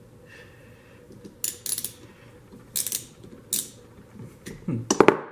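Metal hand tools and parts clinking and clattering on a small motorcycle engine while a nut is being tightened: a series of sharp metallic clinks, loudest in a quick cluster near the end.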